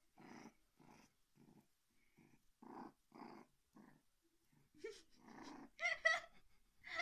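Puppy grunting and growling softly in short puffs, about two a second, while its belly is being rubbed; a louder giggle-like burst breaks in near the end.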